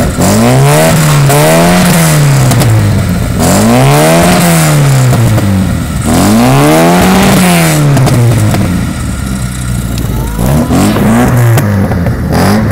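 Lada 2102's four-cylinder engine being revved: three long rises and falls in engine speed, then several short, quick throttle blips near the end.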